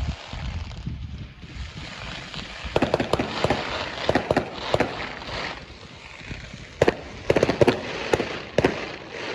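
Fireworks going off: a string of sharp bangs and cracks in two bursts, the first starting about three seconds in and the second near the end.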